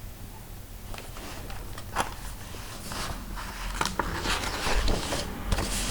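Paper rustling and scattered soft clicks as the pages of a picture book are handled and turned. A quiet first second, then the rustles start, with the sharpest click about two seconds in and more rustling toward the end.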